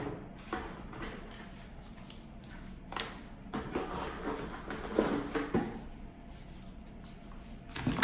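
Handling noise from unpacking a projector's power adapter and cable: scattered light knocks and rustling, then a louder thump near the end as the adapter is set down on the table.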